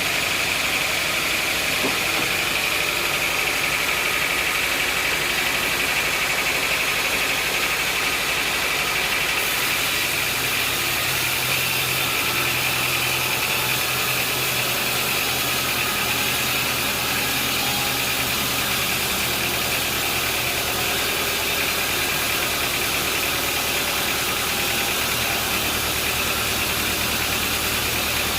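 Sawmill machinery running steadily, a motor hum under a continuous high whine; about ten seconds in the low hum shifts to a new steady pitch.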